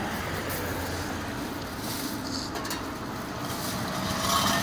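Steady motorway traffic noise, swelling a little near the end.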